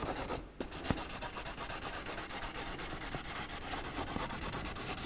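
Crayon rubbed over paper on an easel pad in quick back-and-forth colouring strokes, with a brief pause about half a second in.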